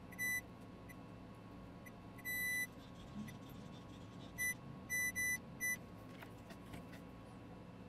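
Electronic beeper sounding six high beeps of one pitch, irregularly spaced, the second one longer than the rest, over a faint steady hum of bench equipment.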